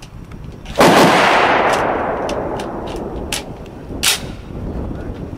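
A single rifle shot about a second in, its report dying away slowly over a couple of seconds, then a second, quieter sharp crack near the end.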